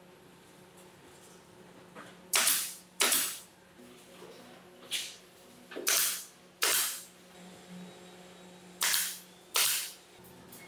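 Pneumatic nail gun firing into wood about seven times, often in quick pairs, each shot a sharp crack with a brief trailing hiss.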